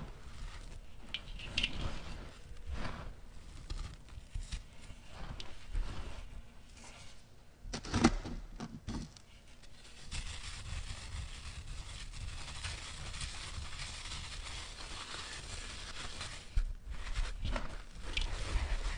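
Dry sand-and-cement blocks and gritty sand crushed and crumbled by hand: scattered crunches and trickling grit, with a sharp crunch about eight seconds in. A steady gritty rustle follows in the middle, then louder crumbling near the end.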